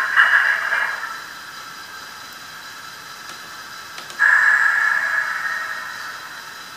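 Steam whistle from the SoundTraxx DCC sound decoder in an N scale Athearn Challenger, played through the locomotive's tiny speaker: one blast ending about a second in, a faint hiss, then a second blast starting suddenly after about four seconds and fading away.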